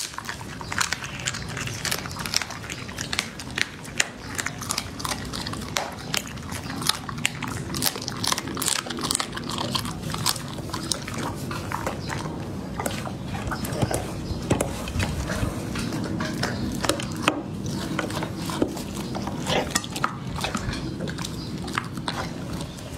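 A chocolate Labrador chewing and crunching raw meat and bone: a steady run of irregular sharp crunches, several a second.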